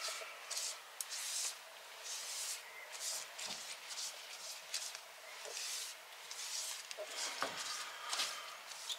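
Silicone basting brush spreading oil over a hot cast iron stove top in repeated strokes, each a short hissing swish as the oil meets the hot iron during seasoning.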